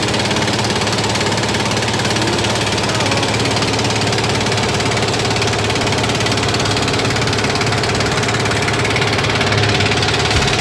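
A fishing boat's engine running steadily while under way.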